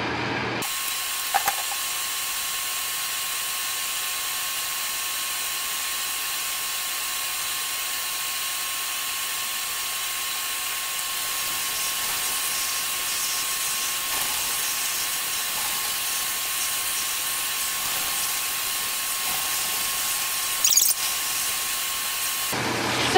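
Handheld shower sprayer running, a steady hiss of water spraying onto a dog's wet back, with a faint steady whine under it. It comes on abruptly about a second in and is shut off near the end, just after a brief sharp sound.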